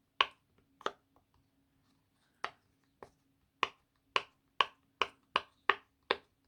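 Silicone pop-it fidget toy, its bubbles pushed through one at a time from the side opposite the quiet one: about ten sharp pops, spaced out at first, then coming roughly two or three a second in the second half.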